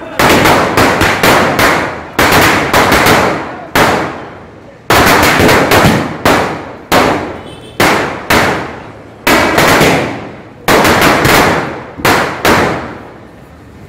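Gnanavel Fireworks 5000-wala blue-tube firecracker chain bursting: loud runs of rapid bangs, each run fading for a moment before the next begins, about every second or two.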